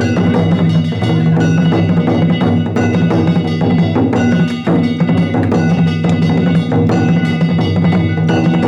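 Danjiri narimono: taiko drums beaten in a dense, unbroken rhythm, with hand-struck metal gongs ringing over them.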